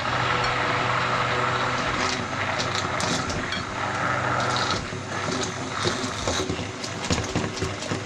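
Hand-held immersion blender running in a bowl of egg and condensed-milk batter, its motor humming steadily over the churning liquid. About five seconds in, as grated coconut goes in, the steady hum weakens and the sound turns uneven with scattered ticks.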